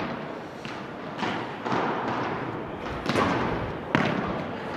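Padel ball being struck with rackets and bouncing on the court: about five sharp knocks in a rally, the loudest near the end.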